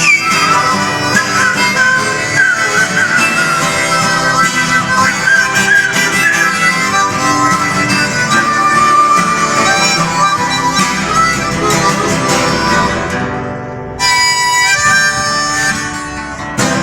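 Instrumental music: a wavering melody line over a dense backing, briefly thinning and cutting back in about fourteen seconds in.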